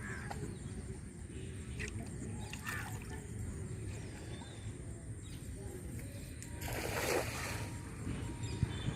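A single water splash about seven seconds in, over a steady low rumble.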